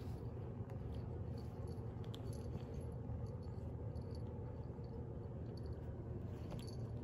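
Faint scuffling and scattered soft ticks of a cat wrestling a plush toy on carpet, over a steady low hum.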